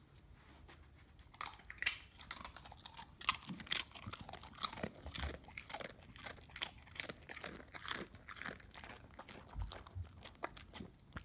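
Dog crunching and chewing a tortilla chip: many sharp, irregular crunches coming quickly one after another.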